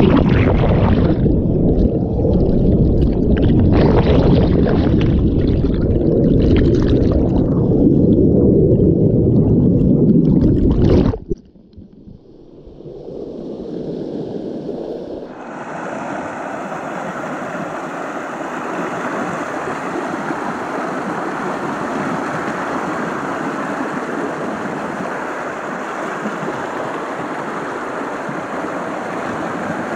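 Fast-flowing river rapids, heard first underwater as a loud muffled rumble. About eleven seconds in it drops off sharply. From about fifteen seconds it is heard above the water as a steady, brighter rush of whitewater.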